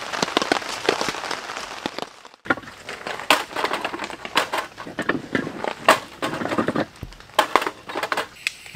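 Heavy rain pattering for about two seconds. After a short break, split firewood sticks knock and clatter together as they are laid crosswise by hand.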